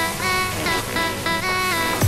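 Background electronic music with a melody of notes that slide up and down.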